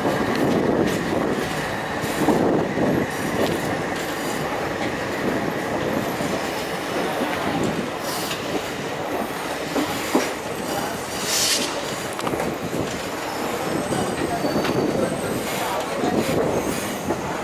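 Passenger train rolling slowly into a station, heard from aboard: a steady rumble and clatter of the coach wheels on the rails. A thin squeal sounds in the first few seconds, and a brief high hiss comes about eleven seconds in.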